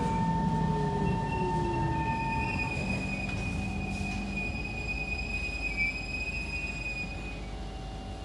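Kawasaki C151 electric metro train braking into a station. A motor tone falls in pitch and fades during the first couple of seconds, while thin steady high-pitched squealing from the wheels and brakes holds for several seconds over running noise that slowly dies away.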